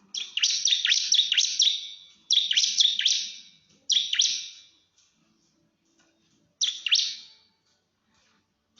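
Ciblek (bar-winged prinia) singing in quick-fire bursts of sharp, high chirps, four bursts with short pauses between them: the rapid 'nembak' challenge call aimed at a rival.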